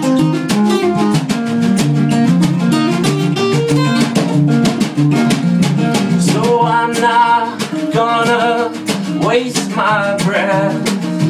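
Two acoustic guitars played together in a small tiled bathroom, one strumming and one picking out notes. About six and a half seconds in, a voice joins with long wavering notes.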